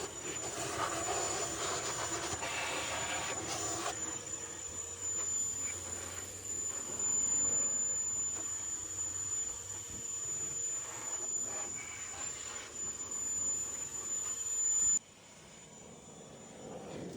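Air blower running steadily with a thin high whine, blowing lint and dust out of a dryer cabinet. It shuts off suddenly near the end.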